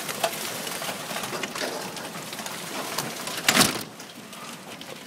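Hail storm: hailstones and heavy rain pelting the ground and parked cars, many sharp ticks over a steady hiss. A louder burst comes about three and a half seconds in, after which the storm sounds quieter.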